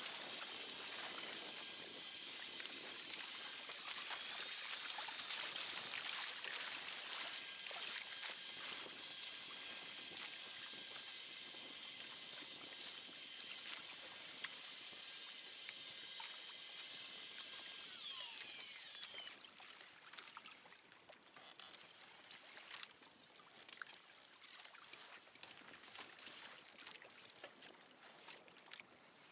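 Small electric motor whining steadily at a high pitch, then falling in pitch and stopping about 18 seconds in, over water trickling and splashing.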